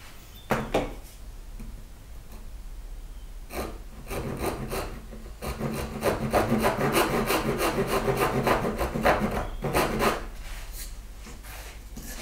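Japanese pull saw cutting down a marked line in a small piece of wood: a run of quick, repeated rasping strokes lasting about six seconds, starting a few seconds in. A single knock comes about half a second in.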